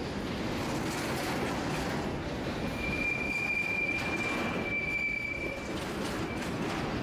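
Freight train of grain hopper cars rolling along the rails with a steady rumble of wheels. Between about three and six seconds in, a single high, steady wheel squeal rings out.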